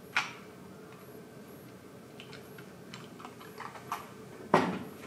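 Plastic case of a DIN-rail energy meter being handled: a sharp click at the start, a run of small clicks and taps in the middle, and a louder knock near the end.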